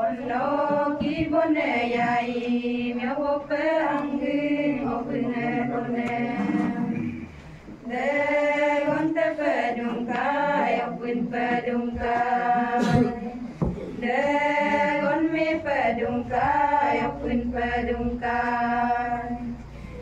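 A group of women singing together from printed song sheets, unaccompanied, in a chant-like song sung in long held phrases, with a brief break about seven seconds in.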